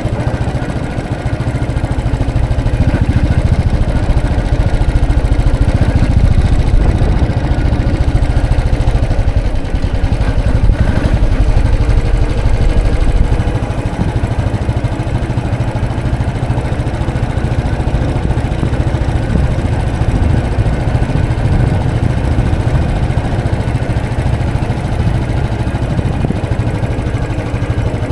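Royal Enfield 500's single-cylinder four-stroke engine running with a steady low thump, a little louder for the first half and easing off slightly about halfway through.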